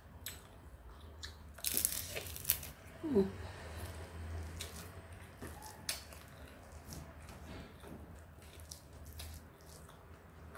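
Eating by hand from a stone mortar: fingers mixing and scraping rice and sambal against the stone, with chewing and scattered small crisp clicks, a denser cluster of them about two seconds in, over a low steady hum.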